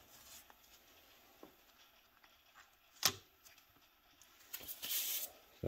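Faint handling sounds as a clutch disc and plastic alignment tool are fitted against an engine flywheel: one sharp click about three seconds in, then a short scraping rustle near the end.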